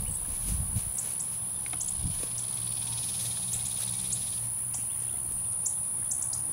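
A steady high-pitched insect drone, typical of crickets, with scattered short ticks, a few soft low thumps in the first two seconds, and a soft rustle of grass from a little after two seconds to past four seconds as the nine-banded armadillo roots through it.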